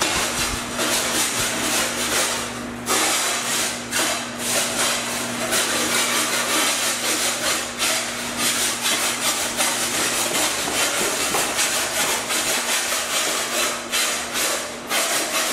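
Continuous scratchy scraping and rubbing with many small clicks, over a steady low electrical hum.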